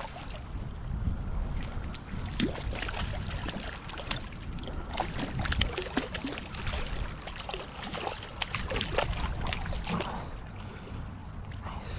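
Irregular small knocks and water splashing around a kayak, over a low wind rumble on the microphone.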